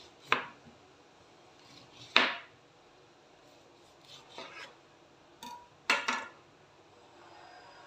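Kitchen knife slicing a lime on a plastic cutting board: a few short, separate cutting strokes through the rind and flesh.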